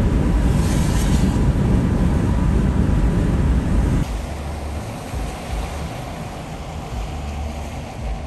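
Road and wind noise of a moving vehicle: a steady heavy rumble that drops suddenly to a quieter rumble and hiss about four seconds in.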